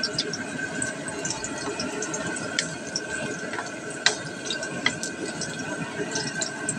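Sliced garlic frying in hot oil in a wok: a steady gentle sizzle with scattered small pops and crackles, and a few sharp taps of a wooden spatula on the wok.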